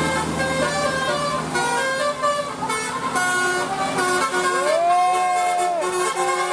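Bus telolet horn (Basuri-type musical air horn) playing a tune of short stepped notes, then a louder long note that slides up into the pitch and falls away at its end, over a bus engine's hum.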